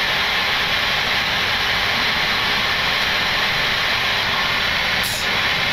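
Steady rushing hiss of air and running systems inside a Boeing 737 cockpit, holding at an even level.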